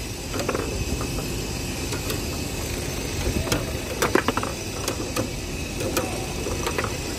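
Foosball table in play: irregular sharp clacks and knocks as the plastic figures strike the ball and the rods are worked, with a cluster of them about four seconds in, over steady background noise.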